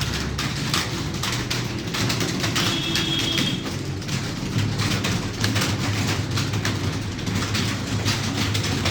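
Rapid keyboard typing: many quick, irregular key clicks over a low steady hum.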